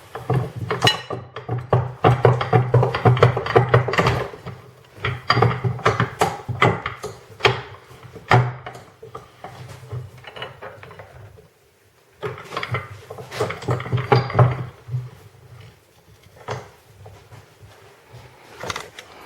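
Irregular metal clanks, clicks and knocks of a suspension arm and a rubber-metal silent block being handled and set up in a bench vise for pressing in. The sounds stop for about a second roughly two-thirds of the way through, then resume.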